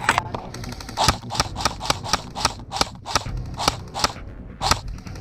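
Airsoft electric rifle firing a quick string of single shots, about a dozen sharp cracks roughly three a second, starting about a second in.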